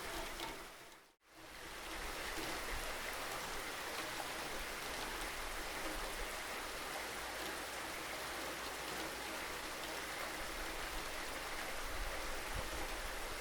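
Steady rainfall, a dense even patter, that fades out to silence a little over a second in and fades straight back in, as at an edit between two recordings.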